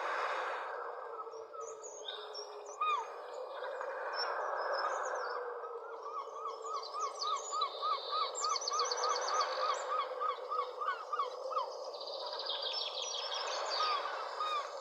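Several wild birds calling and singing over a steady background hiss. The middle holds a long run of quick repeated chirps, about four a second, with high thin trills over them, and another high trill comes near the end.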